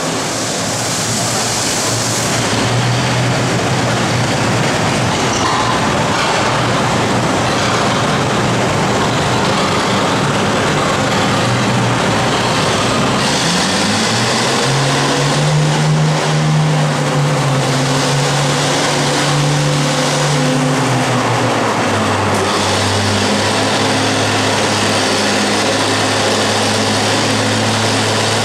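Antique tractor engine running at a steady idle, revved up and held higher for several seconds, then let back down to idle while it sits hitched to the pulling sled.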